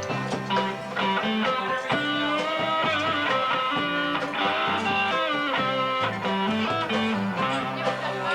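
Instrumental music led by guitar, with plucked and strummed notes over a steady bass line.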